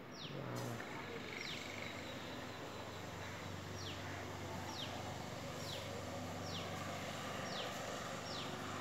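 A small bird repeating a short, high, falling whistle about once a second, with a longer gap early on. Under it are a steady hiss and a low hum.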